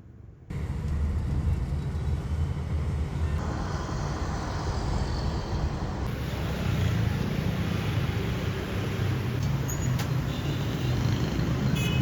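Road traffic going by: a steady low rumble of engines and tyres, starting suddenly about half a second in, with its texture shifting abruptly twice.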